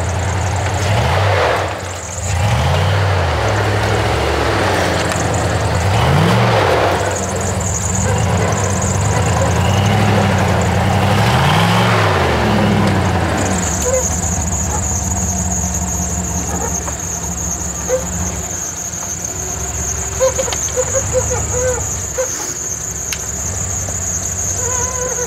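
Lifted Jeep Grand Cherokee ZJ on large mud tires, its engine revving up and down over and over as it crawls through snow. About halfway through the revving settles into a steadier run, and a steady high-pitched whine joins in.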